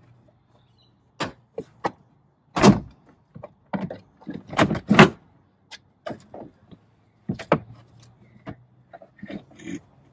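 Plastic trim clips of a 200 Series Toyota LandCruiser's rear side trim panel snapping loose one after another as the panel is flexed away from the body. Irregular sharp snaps, the loudest about two and a half and five seconds in.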